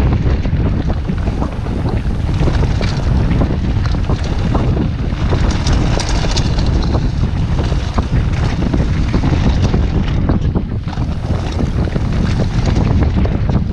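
Wind buffeting the camera microphone on a mountain bike riding fast down a dirt trail, with constant rattling and clicks from the bike and tyres over the bumps.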